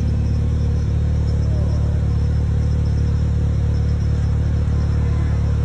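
Steady low rumble with a constant hum, unchanging throughout, heard through a doorbell camera's microphone.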